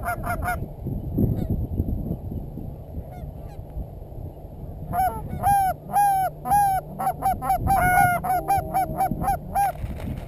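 Geese honking: a quick group of three honks at the start, then a fast run of about a dozen honks from about halfway through to near the end.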